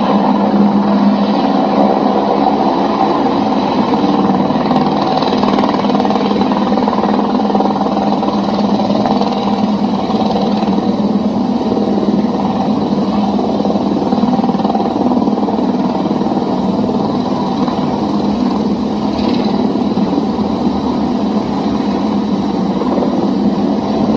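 Helicopter's turbine engine and rotor running as a loud, steady drone with a constant low hum, with no clear break or impact.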